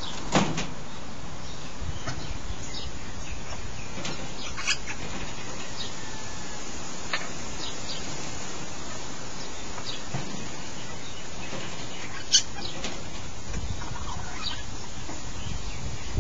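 African grey parrots giving a scattering of brief, sharp, high chirps every few seconds, the loudest about twelve seconds in, over a steady hiss.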